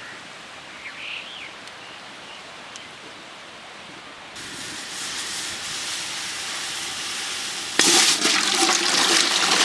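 Water rushing and pouring: a soft hiss starts about four seconds in, and about eight seconds in it jumps to a loud, steady gush.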